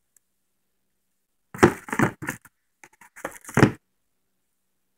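Two short clusters of knocks and rattles about a second apart, from auto-body hammers and dollies being handled.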